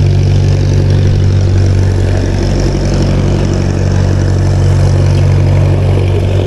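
An engine idling steadily, an even low hum with no change in speed.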